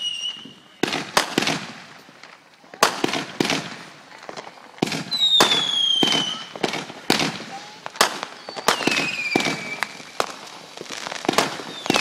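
Aerial fireworks going off in a rapid series of sharp bangs and crackling pops, with whistles that fall in pitch about five seconds in and again near the end.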